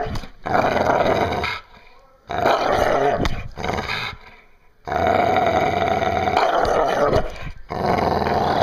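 Pit bull growling with a cloth toy clamped in its mouth: several long, rough growls, each a second or more, with short breaks between them.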